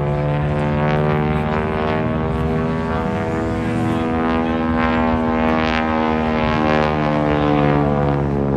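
AT-6 Texan's Pratt & Whitney R-1340 radial engine and propeller droning steadily in flight, the pitch slowly shifting as the plane manoeuvres.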